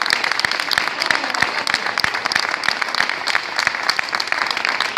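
A crowd of workers applauding: many hands clapping steadily.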